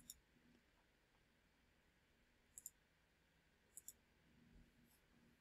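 Near silence broken by three faint pairs of computer mouse clicks: one at the start, one about two and a half seconds in, and one just short of four seconds in.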